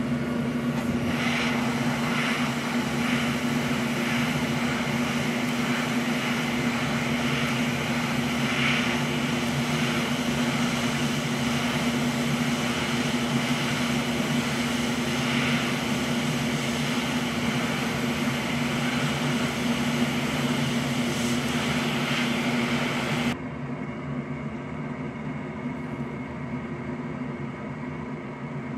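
Steady whir of a small electric fan with a strong steady hum under it, typical of bench repair gear such as a hot-air rework station or fume extractor. About 23 seconds in it drops suddenly quieter and duller, then runs on.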